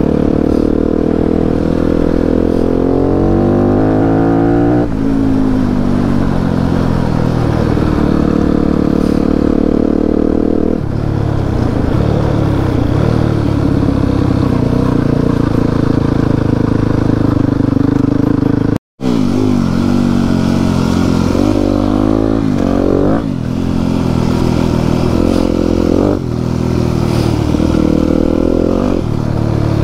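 Enduro motorcycle engine being ridden off-road, its pitch climbing and dropping again and again as the throttle is opened and closed. The sound breaks off for an instant about two-thirds of the way through, then resumes.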